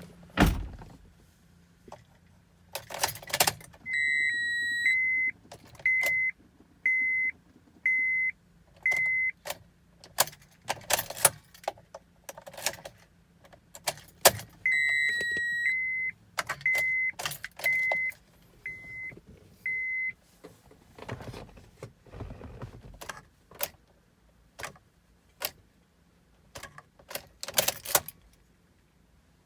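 Keys jangling and clicking at a 2006 Honda Odyssey's ignition while the van's warning chime sounds twice, each time one longer tone and then short beeps about once a second. No engine runs or cranks.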